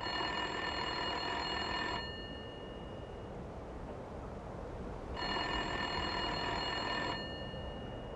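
A telephone ringing twice, each ring about two seconds long with about three seconds of pause between them, over a steady hiss.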